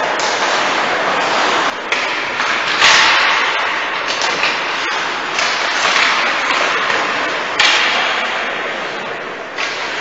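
Ice hockey play on the rink: skate blades scraping and carving the ice, with sharp stick and puck clacks. Sudden hissing scrapes start about three seconds in and again near eight seconds, each fading over about a second.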